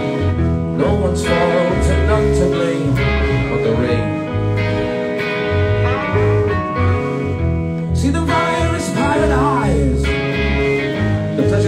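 Live band playing with guitar over deep, repeated bass notes. Sliding, bending notes come in about eight seconds in.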